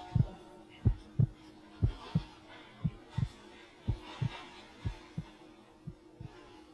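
Heartbeat sound effect: pairs of low thumps, a beat and a quick second beat, about once a second, over a faint steady hum.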